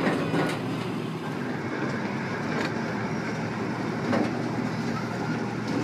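Open passenger cars of a small park train rolling along the track: a steady rumble with a few short clanks.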